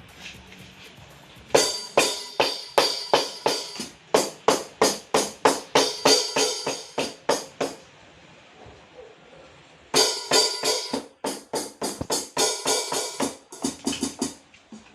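Yamaha DTX electronic drum kit being played to test the repaired snare and hi-hat pads: two quick runs of drum strikes, about three to four a second, separated by a short pause.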